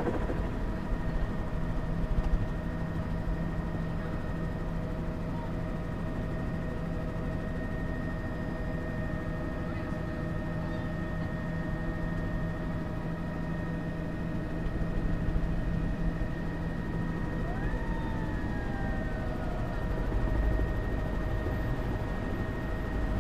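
Helicopter in flight: a steady low engine and rotor drone with a constant whine.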